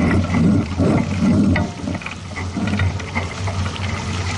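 Water rushing and sloshing along a sailboat's hull, surging and easing every second or so over a steady low hum.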